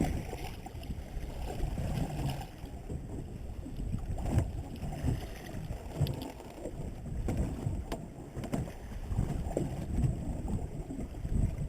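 Water sloshing against a small boat's hull, with wind buffeting the microphone and a few sharp knocks.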